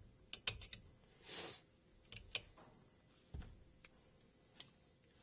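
Small metal clicks of an AR-15 safety selector and SMI BETR trigger being worked by hand to check that the safety functions: a quick cluster of clicks in the first second, then single clicks every half second to a second. A brief soft rush of noise comes about a second and a half in.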